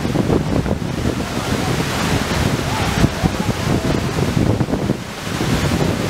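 Katekh waterfall, an 18–20 m fall, pouring into its plunge pool: a loud, steady rush of falling water, with wind buffeting the microphone.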